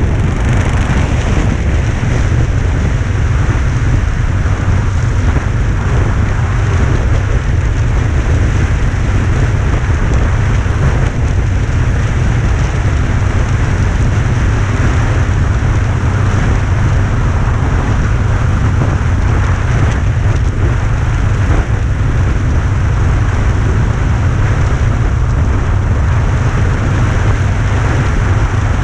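Steady loud rumble and hiss of wind buffeting the microphone while riding a bike, mixed with road noise, with no clear engine note.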